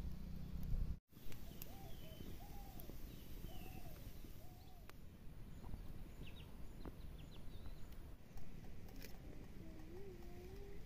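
Outdoor rural background noise with birds calling: several short arched calls and small chirps in the first few seconds, then a wavering lower call near the end. The sound cuts out completely for a moment about a second in.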